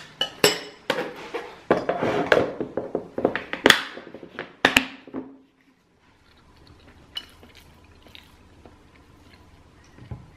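Glass food-storage container and its plastic lid being handled and pressed shut, a quick run of clicks, knocks and clatter that stops abruptly about five and a half seconds in. After that come a few faint spoon clinks against a ceramic bowl.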